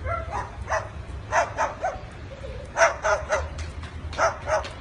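A dog barking repeatedly in short yaps, coming in quick groups of two or three.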